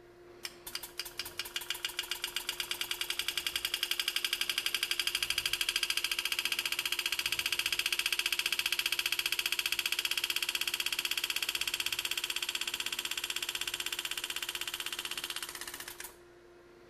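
Pneumatic Enset engraving handpiece hammering a graver through a cut in a metal plate: a fast rattle of tiny impacts that starts slowly about half a second in, quickens into a steady rapid buzz, and stops abruptly near the end.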